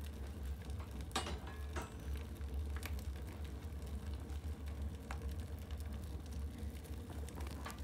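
A young birch-bark and wood kindling fire burning in a cast-iron wood stove, crackling with a few sharp pops over a steady low rumble.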